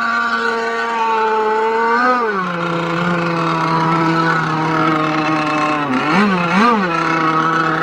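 Two-stroke gas engine of an RC speedboat (Zippkits SLR Thunder) running at speed as a steady high whine, dropping in pitch about two seconds in as the throttle eases, then two quick throttle blips about six seconds in. The engine is on stock, untuned settings, which the owner judges to be running too rich.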